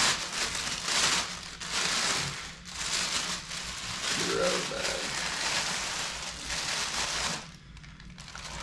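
Packaging wrap crinkling and rustling in uneven bursts as it is pulled off a new cast crankshaft, stopping about seven seconds in.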